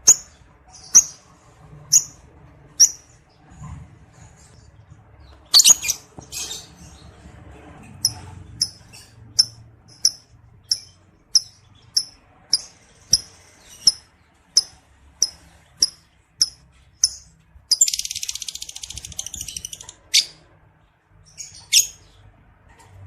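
Lovebird calling in breeding condition: sharp, high chirps repeated about once or twice a second. Near the end comes a long, rapid rattling chatter lasting about two seconds, the 'ngekek' of a lovebird in breeding condition ('birahi').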